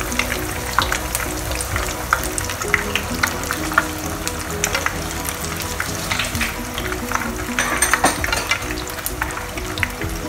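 Batter-coated prawns deep-frying in hot oil, a steady crackling sizzle with many small sharp pops as the batter fries to golden brown. Soft background music with a simple repeating melody underneath.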